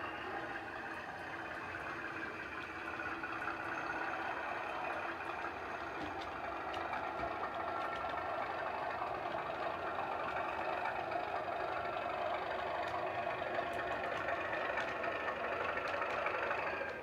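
Sound-fitted model Class 37 diesel locomotive, its recorded diesel engine sound playing through the model's small speaker as it runs, growing gradually louder as the train approaches.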